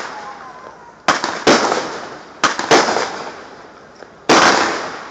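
Consumer fireworks going off: five sharp, loud bangs, roughly in pairs about a second apart, each trailing off over about a second.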